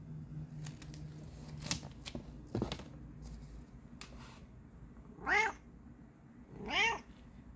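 Bengal cat giving two short meows about a second and a half apart, each rising then falling in pitch. A few light taps come before them in the first seconds.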